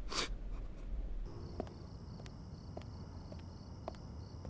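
Crickets chirring steadily and high-pitched, with a regular pulse, starting about a second in, with a few faint scattered clicks. Just before that comes one brief soft noise.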